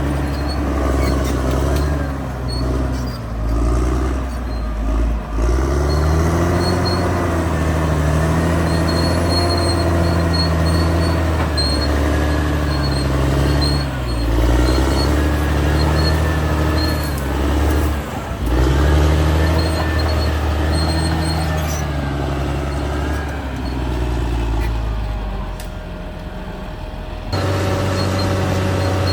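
Caterpillar D6R XL bulldozer's diesel engine working under load, its revs rising and falling again and again as the machine pushes and shifts. Near the end the sound drops back, then jumps abruptly louder.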